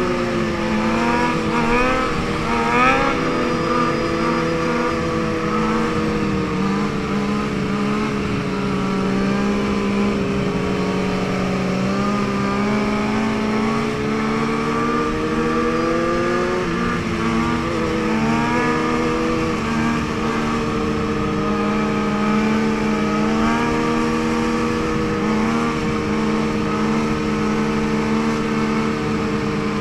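Motorcycle engine running at fairly steady high revs, its pitch drifting slowly, with short throttle blips that push the pitch up in the first few seconds and again a little past the middle.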